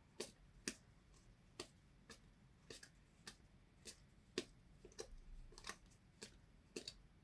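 Faint, irregular clicks and taps of stiff game cards being handled and laid down one after another, about two a second.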